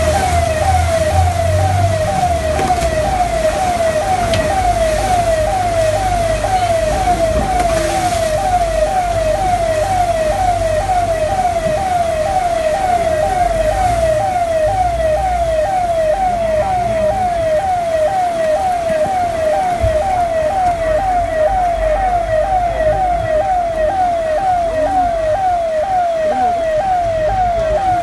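A siren wailing in rapid, evenly repeated falling sweeps, roughly two a second, with a low rumble beneath.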